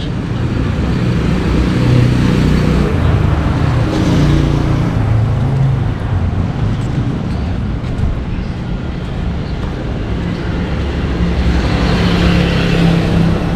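Road traffic: vehicle engines running with a steady rumble, and one vehicle passing close near the end.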